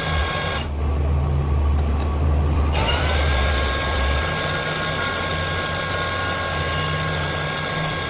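Electric power tool running steadily with a high motor whine while opening a laminated steel padlock body. About a second in the whine drops out for about two seconds, then glides back up to speed.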